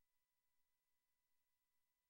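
Near silence: the soundtrack is essentially empty.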